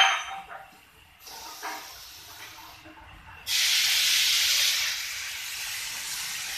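Pressure hissing out at a tyre retreading curing mould: a faint hiss a second in, then a loud hiss starting suddenly about halfway through and easing to a softer, steady hiss near the end.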